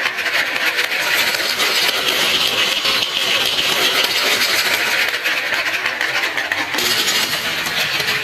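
Many marbles rolling and clattering down a marble run: a dense, continuous rattle of small hard impacts.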